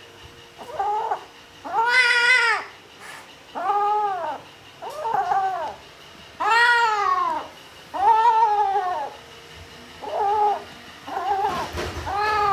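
Kitten meowing loudly over and over, about nine drawn-out calls, each rising then falling in pitch: the protesting cries of a kitten upset at being bathed.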